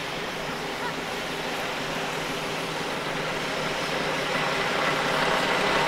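Classic truck engine running as the vehicle approaches, growing steadily louder.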